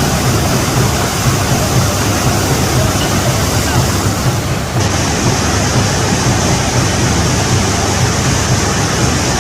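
Steady loud roar of rushing water from a waterfall or river rapids, with a deep rumble under an even hiss.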